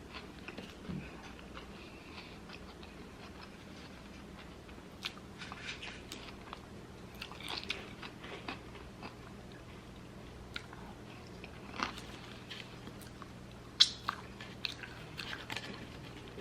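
Close-up eating sounds from a cheeseburger and curly fries meal: quiet chewing and biting with soft wet mouth noises and scattered crunchy clicks, the sharpest about twelve and fourteen seconds in. A faint steady hum sits underneath.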